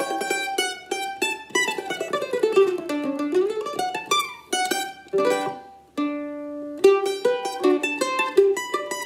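Solo bowl-back mandolin, built by Joel Eckhaus, played with a pick in a classical style: quick picked notes and a long falling then rising run, with a held chord about six seconds in before the quick playing resumes.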